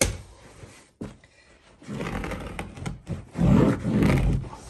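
A sharp snap at the start, then about two and a half seconds of rough scraping and rubbing, loudest near the end, as the carpet runner is worked and dragged against the stair.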